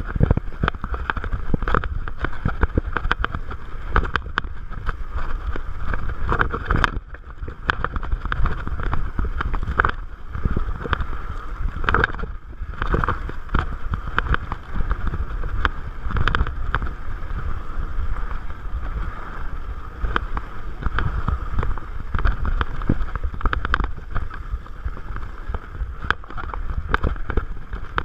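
Wind buffeting the microphone mixed with the rumble and rattle of a Salsa Bucksaw fatbike riding fast down a rocky dirt singletrack, with many sharp knocks as the bike hits rocks and bumps. The noise drops briefly twice, about a third of the way through and again a little before the middle.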